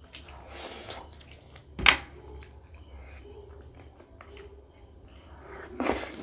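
Wet mouth sounds of someone eating saucy curried pork by hand: a slurp, then one sharp loud smack about two seconds in, soft chewing, and another loud wet smack near the end.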